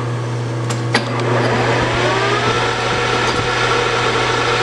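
Metal lathe starting up: a steady motor hum, a click about a second in, then the spindle and chuck spin up with a rising whine that levels off into a steady run.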